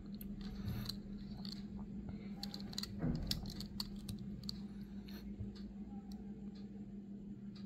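Faint small clicks and rubbing of fingers handling and turning over a small die-cast toy car, a little louder about three seconds in, over a steady low hum.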